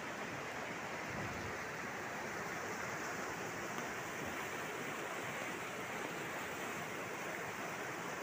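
Fast muddy floodwater rushing in a steady, unbroken wash of noise as a swollen river pours across a road.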